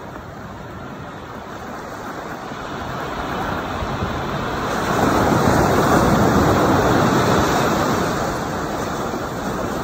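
Surf washing onto a sandy beach: a rush of wave noise that builds over the first few seconds, is loudest around the middle, then slowly eases off.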